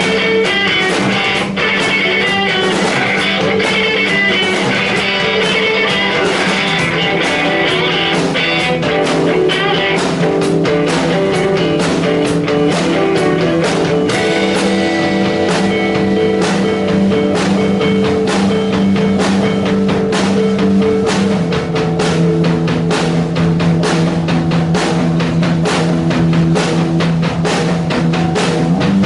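Live band playing an instrumental passage: guitars over a drum kit. The drumming grows busier about halfway through.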